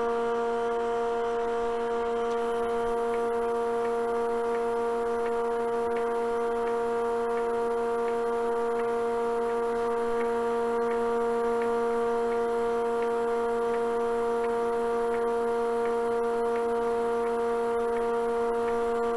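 Wood lathe with a vacuum chuck running at a steady speed: an even hum on one steady pitch, with faint, regular light ticks.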